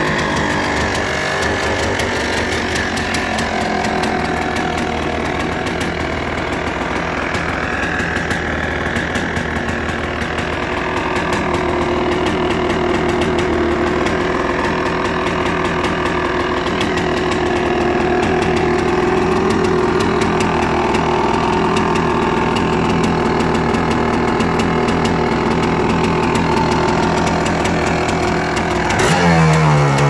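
Kawasaki KXT 250 Tecate three-wheeler's liquid-cooled two-stroke single-cylinder engine idling steadily, with a quick rev starting near the end.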